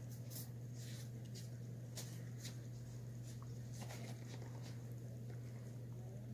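Quiet shop room tone: a steady low hum with a few faint, short clicks and taps scattered through it.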